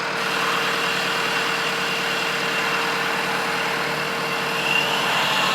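Tractor engine running steadily while its loader forks tilt under a pickup bed, with a steady high whine that rises slightly in pitch near the end.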